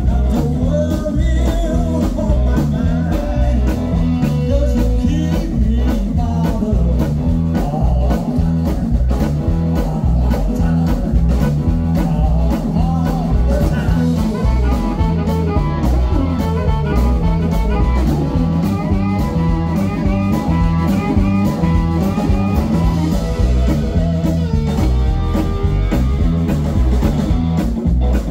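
Live blues-rock band playing loudly: electric guitar and drum kit, with amplified harmonica played through a cupped microphone and a singing voice.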